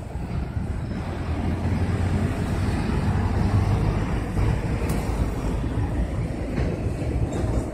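Street traffic: a steady low rumble of buses and cars on the road.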